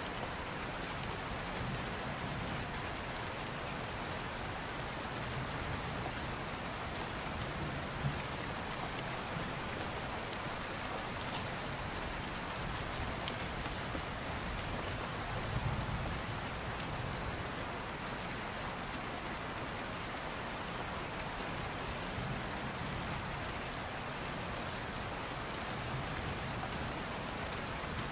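Steady rain falling, an even hiss with a few faint clicks.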